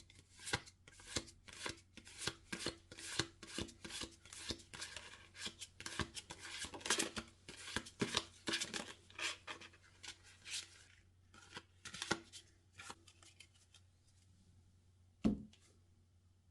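Hands handling packaging: a quick run of short scrapes and rustles, about two a second, thinning out toward the end, then one louder thump.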